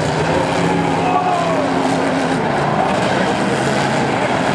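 Several demolition derby car engines running loudly together and revving, with pitches that rise and fall.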